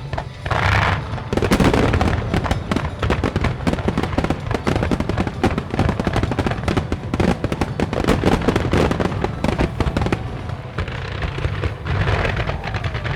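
Aerial fireworks barrage: shell bursts with dense, rapid crackling and banging throughout, over a low rumble.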